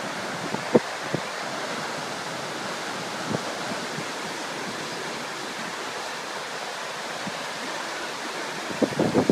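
Steady rush of water pouring down the walls of the 9/11 Memorial's waterfall pools, with a few brief knocks of wind on the microphone and heavier wind buffeting starting near the end.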